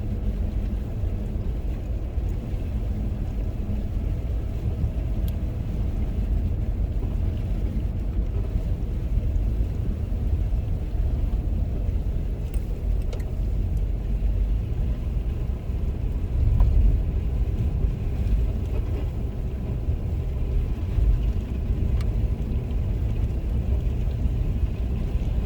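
Steady low rumble of a car driving slowly on a snow-covered road, heard from inside the cabin.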